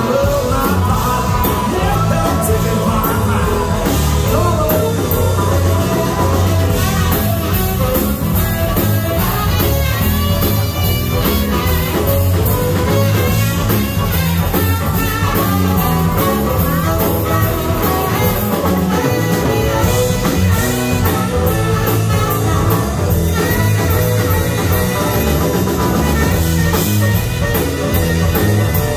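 Live blues-rock band playing loud, recorded from within the crowd: electric guitars, drums and bass under saxophone and harmonica lines, with a steady beat and no break.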